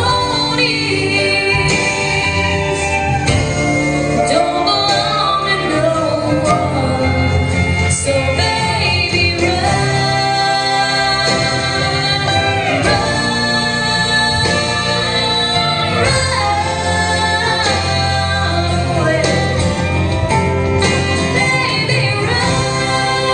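A song: a woman singing long, sliding notes over band accompaniment.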